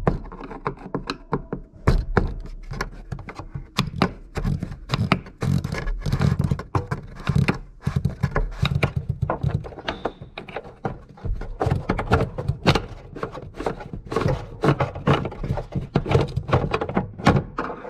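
Irregular knocks and clicks as a metal tool is tapped against the plastic fuel pump locking ring of a VW fuel tank to turn it loose, with rubbing and handling noise between the strikes.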